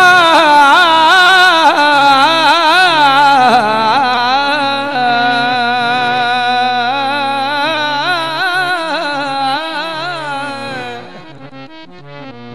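Male Punjabi folk singer holding one long unbroken sung phrase into a handheld microphone, the voice sliding and wavering in pitch over low instrumental accompaniment. The voice fades out about eleven seconds in.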